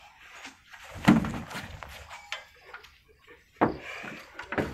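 Water buffalo's hooves knocking on the wooden plank ramp and truck bed as it is unloaded from a pickup: several heavy knocks, the loudest about a second in.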